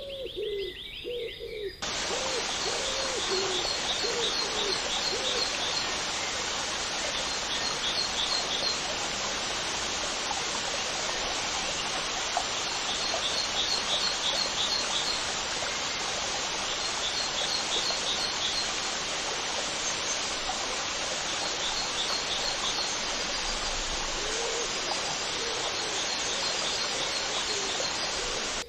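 Birds calling: low cooing calls and short high chirping trills repeated every second or two, over a steady rushing hiss that comes in suddenly about two seconds in.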